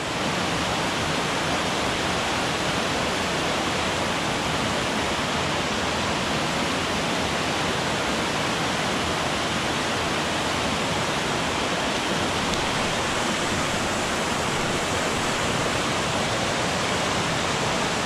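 Small waterfall pouring into a plunge pool: a steady rush of falling water that stays even throughout.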